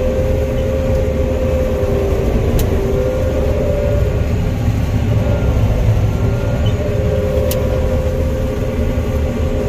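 Combine harvester running steadily while cutting soybeans: a low rumble with a steady two-note whine that wavers slightly, and a couple of faint ticks.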